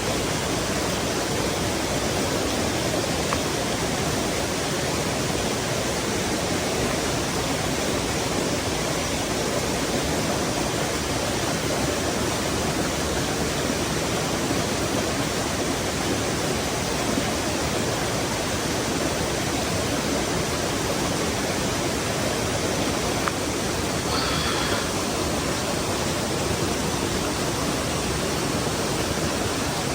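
Mountain stream flowing and splashing over rocks: a steady, even rush of water with no let-up. About two-thirds of the way through comes a brief faint high sound over the water.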